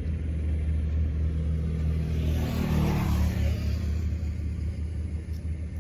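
A motor vehicle passing by: its noise swells and fades over about two seconds in the middle, over a steady low rumble.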